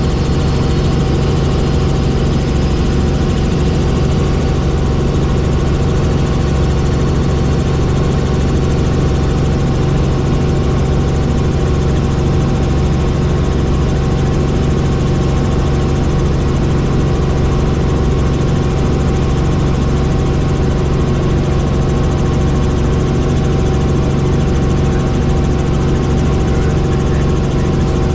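Small helicopter in level flight heard from inside the cabin: steady engine, gearbox and rotor noise, a constant low drone with a fixed higher tone above it.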